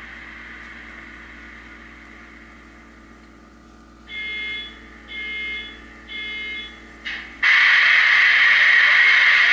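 Air-horn sound from the SoundTraxx Tsunami decoder of an HO-scale Athearn Genesis SD70ACE model diesel, played through its small onboard speaker: a faint steady hum, then three short horn toots about a second apart, a brief toot, and from about seven and a half seconds in a long, much louder blast.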